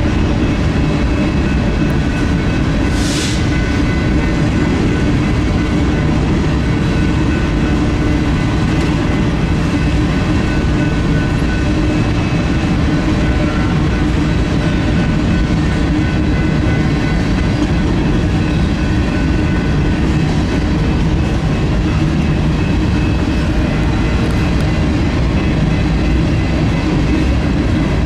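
Freight train of covered hopper cars rolling steadily past: a continuous rumble and clatter of wheels on rail, with a short hiss about three seconds in.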